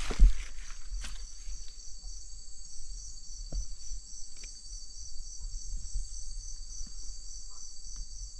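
Steady chorus of night insects, a high trilling band with an even pulse a few times a second. A single thump comes just after the start, then a few faint rustles and ticks from brush being moved.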